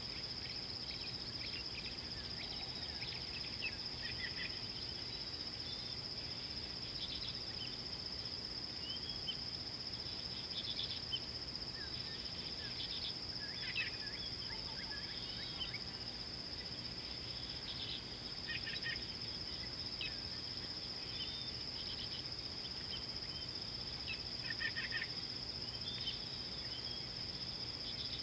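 Steady high-pitched insect drone, with scattered bird chirps and whistles over it that come in small clusters several times.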